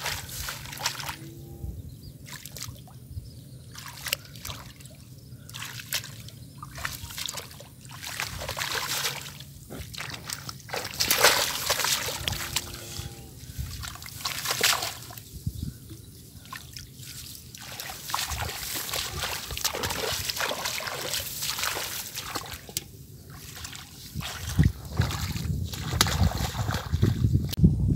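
Water splashing and trickling in irregular bursts, as water is stirred and poured during fishing. A louder, deeper rush of noise comes in near the end.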